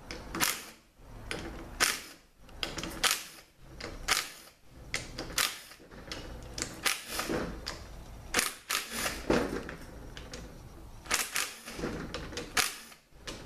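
Cordless DeWalt driver backing out the bolts of a Toyota A340 automatic transmission's oil pump: a string of short, sharp bursts and metallic clicks, roughly one a second, each bolt taking a brief spin.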